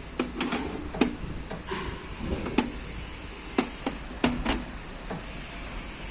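Hand tools and metal parts clinking and knocking, about eight sharp, irregular knocks over a few seconds, as a van's front drive axle and wheel hub are taken apart.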